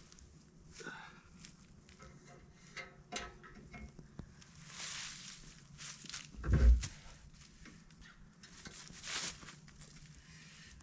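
Footsteps and rustling, with scattered clicks and a single heavy thump a little past halfway.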